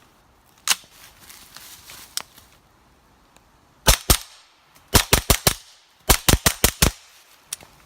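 Suppressed 9mm CZ Scorpion Evo firing subsonic 158-grain rounds through a home-built titanium suppressor with freeze-plug baffles: two shots, then a quick string of about four, then about six more in quick succession.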